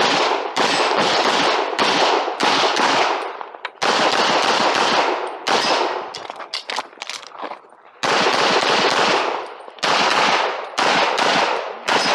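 Handgun fired rapidly in strings of shots about 0.4 s apart, with short breaks between strings about three and a half, six and seven and a half seconds in, during a timed IPSC practical shooting stage.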